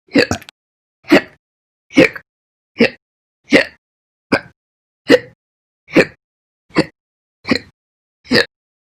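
A woman hiccuping over and over, short sharp hiccups a little more than one a second, about eleven in all, the first one a quick double.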